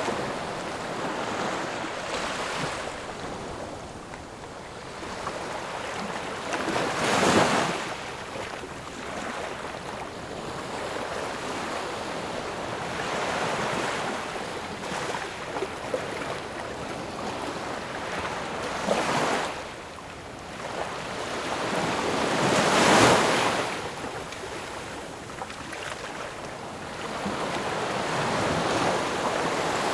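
Ocean waves breaking and washing ashore in a continuous rush of surf. It swells into louder breakers several seconds apart, the biggest about a quarter of the way in and again about three quarters through.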